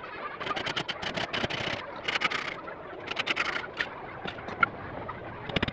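Hand saw cutting through a small wooden strip in quick rasping strokes, coming in bursts over the first few seconds and then tapering off. A single sharp knock near the end.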